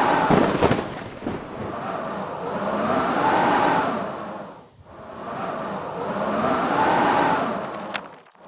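Blizzard wind howling in gusts that swell and die away about every four seconds, its whistling pitch rising and falling with each gust. A dull thump sounds near the start.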